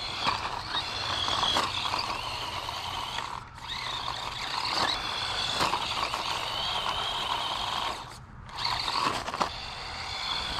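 Small electric 1/18-scale RC truck (DEERC 9310) running under throttle: its motor and gears whine, the pitch wavering up and down, and it cuts out briefly twice, once about three and a half seconds in and again near eight seconds.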